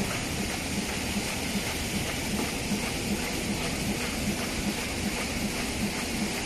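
Roll-fed automatic die-cutting machine running: a steady hiss with a regular low pulse about three times a second.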